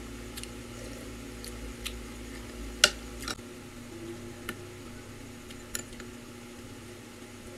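A metal spoon clinking and scraping against a glass bowl of dipping sauce, about eight small clinks with the loudest about three seconds in, over the steady hum of an electric fan.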